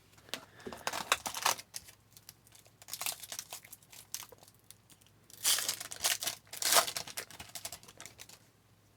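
Trading-card packaging being handled: crinkling plastic and light rustles and clicks as cards and their wrapping are worked apart, with two louder crinkles about five and a half and nearly seven seconds in.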